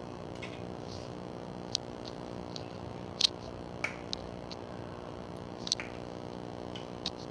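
Oil heating in a non-stick pot on a gas burner: scattered sharp ticks and pops, about a dozen, over a steady low hum. The oil is coming up to temperature for tempering.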